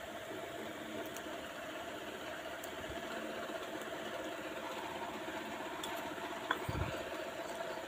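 Sliced onions and garlic frying in hot oil in a pan, a steady sizzle, with a soft thump near the end.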